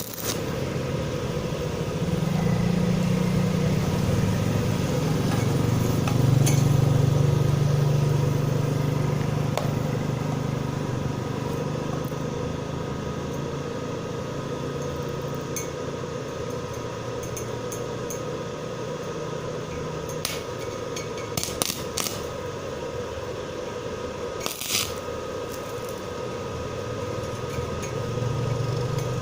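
Stick arc welding with a Lakoni 450-watt welding machine: a steady crackling, frying arc, with a few sharper pops in the second half. A low hum runs under it, louder in the first two-thirds.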